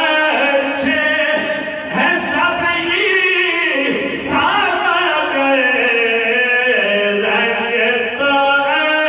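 Two men singing a devotional naat-style kalam into microphones, their voices alternating and overlapping in long held, ornamented notes. About four seconds in, the melody glides down over a couple of seconds.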